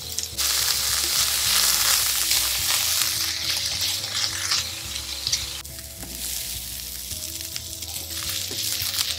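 Diced red onion sizzling in hot oil in a stainless steel pan, stirred with a wooden spatula. The sizzle is loud at first and drops to a quieter hiss a little past halfway.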